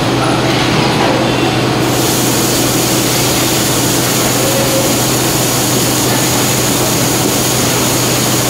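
Steady running noise of injection moulding machinery on the shop floor: a constant low hum with a thin high whine over it.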